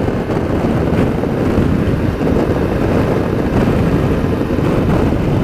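Steady loud wind rush and buffeting on a rider's microphone, with road noise, while riding a Suzuki V-Strom 650 motorcycle at about 60 mph in gusty wind.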